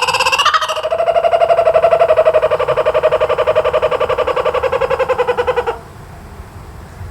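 Laughing kookaburra calling: a loud rolling laugh of fast, evenly repeated notes that rises briefly about half a second in, runs on for several seconds and stops a little before the end.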